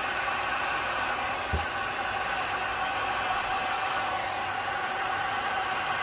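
Heat gun running steadily: an even rush of blown air with a steady hum. One brief low thump about a second and a half in.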